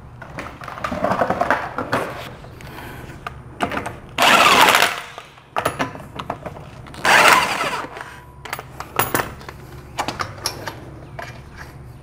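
Yellow cordless impact wrench spinning a RAV4's lug nuts onto the wheel studs in two bursts of about a second each, its pitch falling as each nut runs down, with light metal clinks of lug nuts being handled between them.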